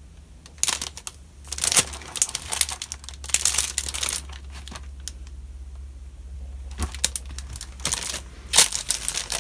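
Clear plastic wrapping around a cardboard box crinkling as the package is handled and turned over, in several bursts with a quieter pause of about two seconds in the middle.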